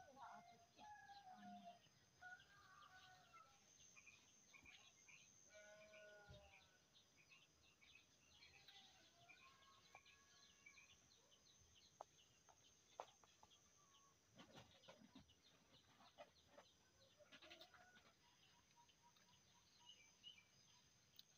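Faint chickens clucking, mostly in the first several seconds, over a steady high-pitched hiss and a few small clicks.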